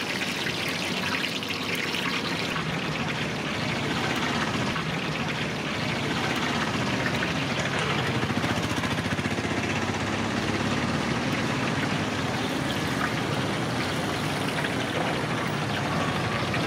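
Hot oil sizzling and crackling steadily in a large iron kadai during deep-frying, over a steady low rumble.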